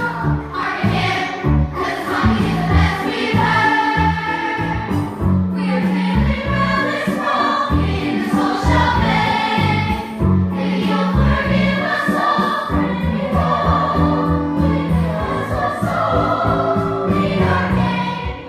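A group of voices singing a musical-theatre song in chorus over an accompaniment with a moving bass line.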